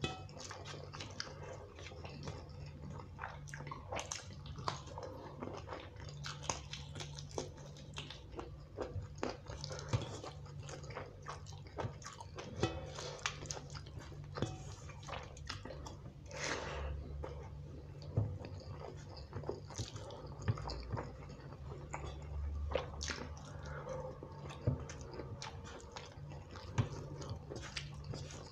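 Close-miked eating sounds: chewing and wet mouth clicks from eating bhuna khichuri by hand, with fingers squishing the rice and scraping on a steel plate. Many short clicks come throughout over a low steady hum.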